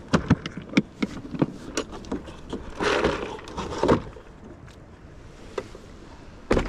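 Plastic tackle box being unlatched and opened: a quick series of sharp clicks and knocks, then a longer clattering rustle about three seconds in, and one more sharp click near the end.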